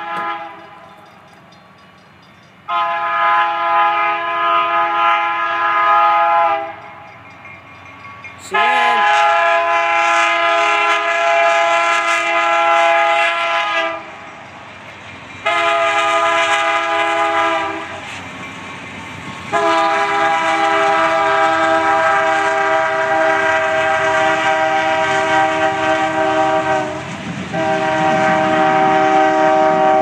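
CN diesel freight locomotive's multi-chime air horn blowing the grade-crossing signal: two long blasts, a short one, then a final long blast held as the train nears the crossing. Low train rumble underneath.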